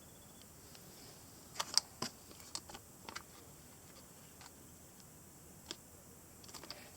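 Ushiwork Ushi Lever 5MT, a five-speed gear-shifter fidget toy, clicking as its lever is worked through the gates: irregular sharp clicks, the loudest bunched about two seconds in, a couple of single ones later and a quick run of softer clicks near the end.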